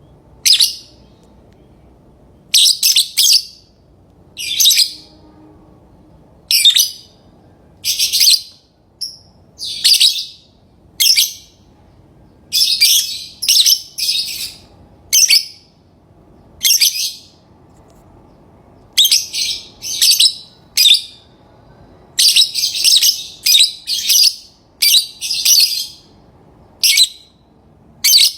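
Lovebirds chirping: short, sharp, shrill calls every second or two, sometimes several in quick succession.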